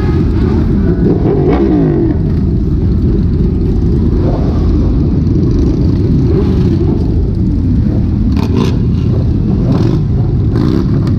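A crowd of motorcycle engines running and revving together, many overlapping pitches rising and falling with no break.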